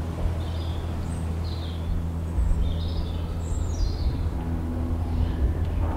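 Birds chirping in short calls, one a quick falling run, over a steady low hum.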